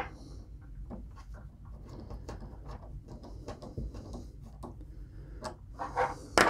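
Small scattered clicks and light scraping of fingers turning the thumbscrews on a DB9 serial cable connector to tighten it onto a gender changer, with a few louder clicks near the end.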